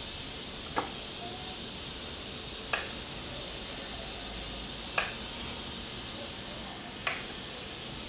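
A metal spoon clicks against a dish four times, about two seconds apart, as syrup is spooned over a sponge cake, over a steady faint hiss.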